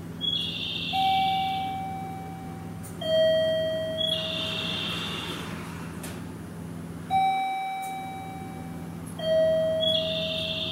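Station guide chime: a falling two-tone ding-dong that sounds twice, about six seconds apart. Short high hissy bursts come between the chimes, over a steady low hum.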